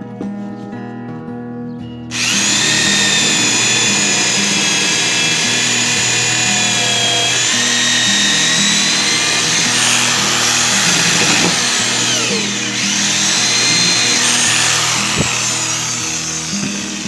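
Corded electric drill starting about two seconds in and running with a high whine, its bit cutting into a wooden block pressed against it. The whine's pitch sags and recovers several times as the wood loads the bit.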